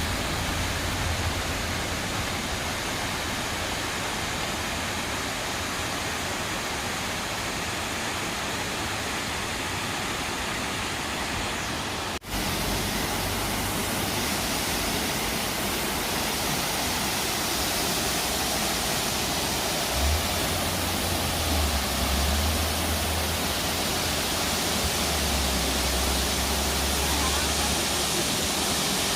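Horsetail Falls, a waterfall, with the steady rush of falling water. The sound breaks off for an instant about twelve seconds in and comes back slightly louder, with low rumbling in the second half.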